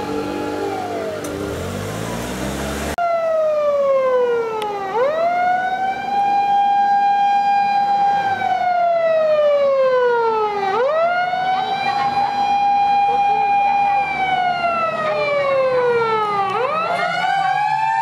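Japanese fire engine siren wailing in slow cycles of about six seconds: each cycle rises quickly, holds high for a few seconds, then falls slowly. In the first few seconds another fire vehicle's siren, holding a steady pitch and then falling, is cut off suddenly.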